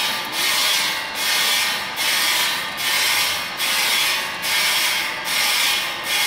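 In-shell sunflower seeds rustling and sliding inside a stainless-steel roasting machine as it runs, a dry hissing swish that swells and dips evenly about every 0.8 seconds.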